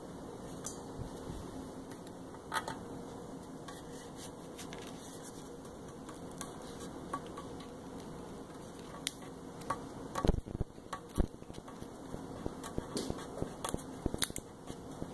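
Fingers pressing and rubbing transfer tape and a vinyl decal onto a KitchenAid stand mixer's body: soft crinkling of the tape with scattered small taps and clicks, busier in the second half and loudest around the middle, over a faint steady hum.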